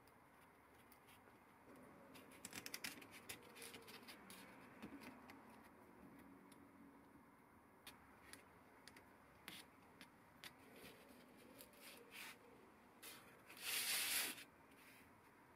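Faint clicks and taps of small steel parts being handled and fitted together as the clamping screw is threaded into a knurling tool's clamping bar, with one short scrape near the end.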